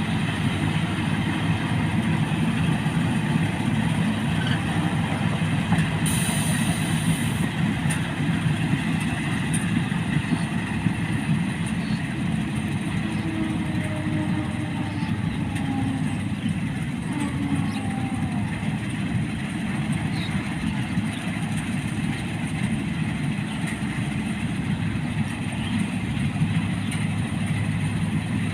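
Rice combine harvester working: a steady, continuous drone of its engine and machinery, with a brief hiss about six seconds in.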